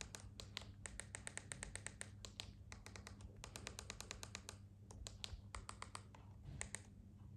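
Faint, quick clicking of TV remote-control buttons pressed over and over to step across an on-screen keyboard, several clicks a second. The clicks thin out to scattered pairs about halfway through.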